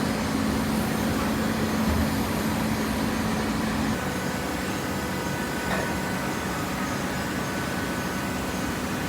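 Cardboard baler running: steady machine noise with a low hum that drops out about four seconds in.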